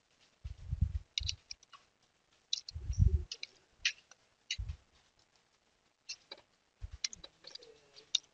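Computer keyboard keys clicking in scattered, irregular taps, mixed with a few dull low thumps.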